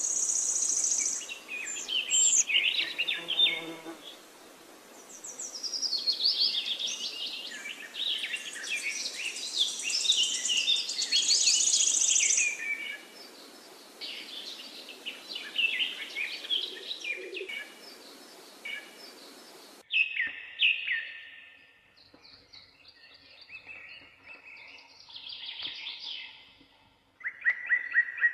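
Birds chirping and singing in quick, overlapping chirps and trills, over a steady hiss that drops out abruptly about two-thirds of the way through.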